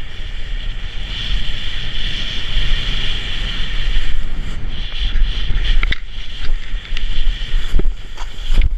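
Wind buffeting the camera microphone with a steady hiss of a snowboard sliding over packed snow while riding downhill. A few sharp clicks and knocks come in the last few seconds.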